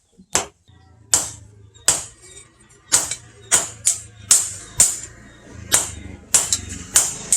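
Hammer blows on steel being forged into a knife blade: about a dozen sharp, ringing metallic strikes at an uneven pace, some in quick pairs, over a low steady hum.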